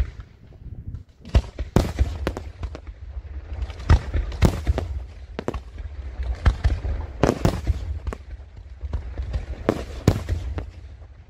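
Daytime fireworks: an irregular, rapid series of sharp bangs from aerial shells bursting into coloured smoke, over a constant low rumble.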